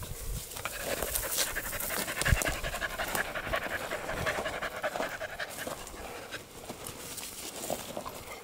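Dog panting, with a few brief rustles and clicks in dry brush.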